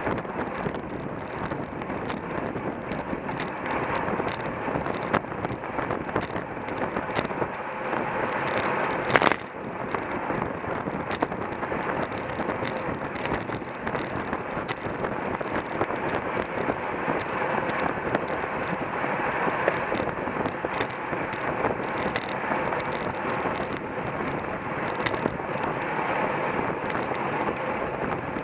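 Steady rushing wind on the microphone and rolling noise from a bicycle being ridden fast in a race, with scattered rattles and clicks and one sharp knock about nine seconds in.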